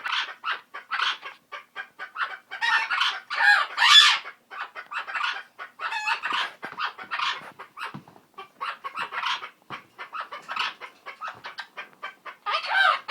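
A chicken clucking in quick, loud calls back and forth with a pet parrot, the two birds calling over each other without a break.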